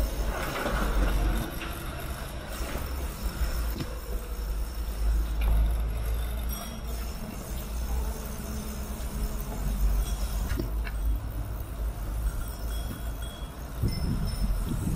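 Steady low rumble of wind buffeting the microphone and tyres rolling on a bicycle ridden along a paved cycle track, with a few light clicks.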